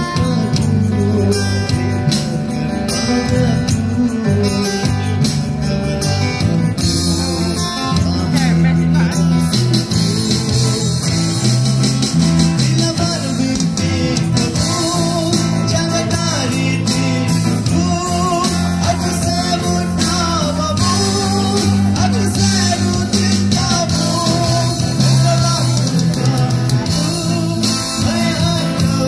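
Live street band playing a Malay pop song through a PA: electric guitar and keyboard over a steady bass line, with a man and a woman singing into microphones.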